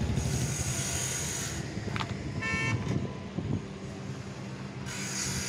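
Powertrac Euro 55 tractor's diesel engine idling steadily, with a vehicle horn giving one short toot about two and a half seconds in. A hiss comes and goes near the start and near the end.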